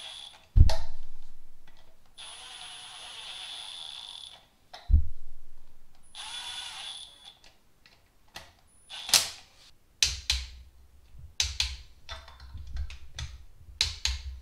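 Milwaukee M12 Fuel cordless tool whirring in three short runs, snugging down the thermostat housing bolts, with a sharp knock about half a second in and another about five seconds in. Scattered clicks and clatter of tools and parts follow in the second half.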